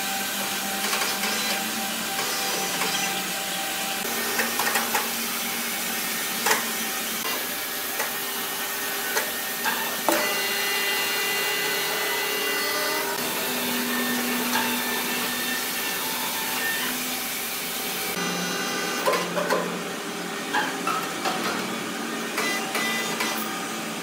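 Steady whirring of sawmill machinery, with scattered knocks and clanks from heavy timber being handled on the hoist. The hiss thins a little about eighteen seconds in.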